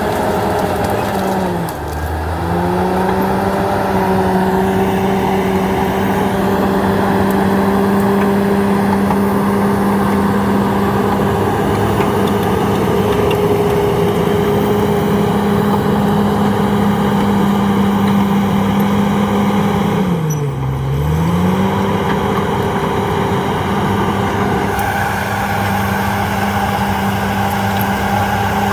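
Komatsu D68ESS bulldozer's diesel engine running steadily at high revs, its pitch dropping sharply and picking back up twice, about two seconds in and again about twenty-one seconds in.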